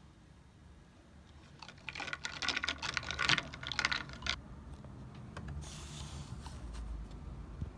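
Typing on a keyboard: a quick run of key clicks lasting about two and a half seconds, followed by a short soft hiss.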